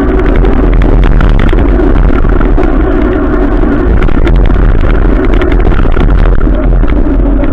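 Vehicle running along in the rain: a loud, steady engine and road rumble, with many short ticks scattered through it.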